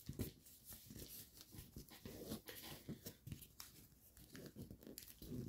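Faint, scattered rustles and small crackles of foil-backed paper being handled and creased by hand.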